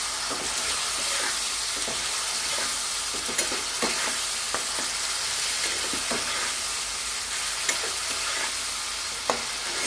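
Onions, capsicum and sauce sizzling in a hot granite-coated nonstick wok as a steel spatula stirs them, with a steady frying hiss and scattered sharp taps and scrapes of the spatula against the pan.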